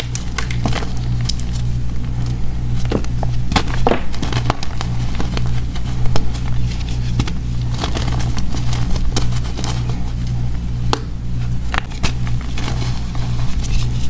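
Blocks of gym chalk crushed and crumbled between the fingers: an irregular run of dry crunches and crackles, with a steady low hum underneath.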